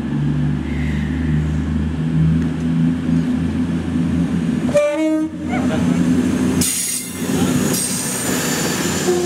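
Class 221 Voyager diesel multiple unit running in alongside the platform, its underfloor diesel engines humming. A short horn blast sounds about five seconds in. Then come rushing wheel noise and a thin high squeal as the coaches pass close by.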